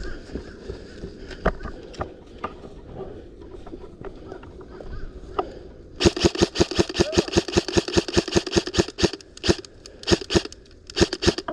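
Airsoft rifle firing, at first only scattered faint pops, then about six seconds in a loud rapid string of shots at about eight a second that breaks into shorter bursts and single shots near the end.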